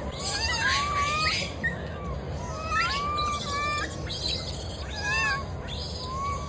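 Baby macaque giving a run of short, high, arching coos and whimpers, one after another, the distress cries of an infant.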